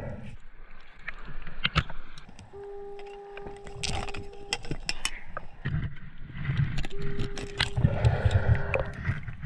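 Underwater handling of a speared fish: clicks, knocks and clanks from the metal spear shaft and fish stringer as the fish is worked onto the stringer. A steady tone sounds twice, for about two seconds each time.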